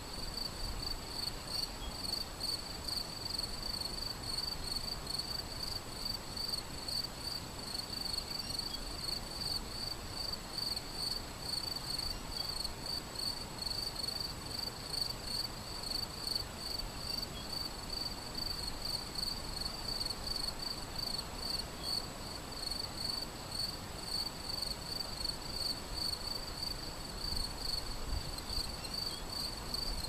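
A cricket chirping in a rapid, even pulse without a break, over the steady soft rush of a shallow river flowing over stones.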